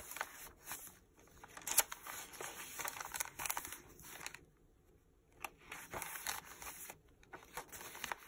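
Paper pages of a handmade junk journal being turned and handled, with repeated rustling and crinkling and a brief pause about halfway.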